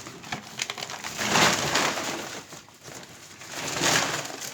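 Dry crushed-grain chick feed (dalia) being poured out: two rushing, rattling pours about two seconds apart.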